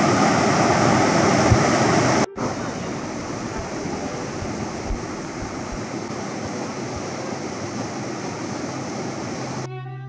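River water rushing over a rocky cascade, a steady full hiss. It is loudest for the first two seconds, then cuts out for an instant and goes on a little softer.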